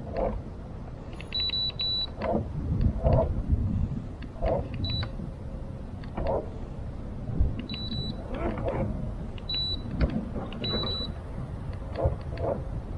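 Wind rumbling against a small fishing boat on choppy water, with water slapping the hull every second or two. Short high electronic beeps come five times, singly or in quick pairs, each preceded by small clicks.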